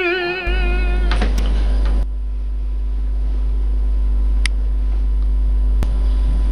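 A child's sung note with a wavering vibrato, the tail of a sung theme song, fades out about a second in. After it a steady low electrical hum runs on, with a few faint clicks.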